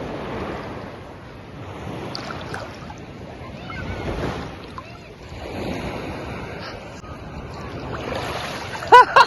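Ocean surf: waves breaking and washing in, swelling and fading every couple of seconds. Near the end, a brief loud shout from a person.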